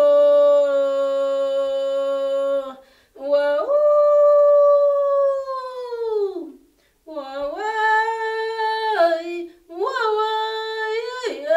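A woman singing unaccompanied in a high voice, an Andean chant: long held notes that slide down at the end of each phrase, with short breaks about three and seven seconds in, then quicker ornamented turns near the end.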